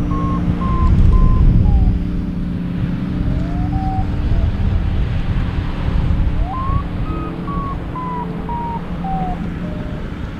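Airflow buffeting the microphone in flight, with a paragliding variometer beeping over it. The short beeps step up in pitch and then slide back down, twice: the vario signalling stronger, then weaker, climb in the ridge lift.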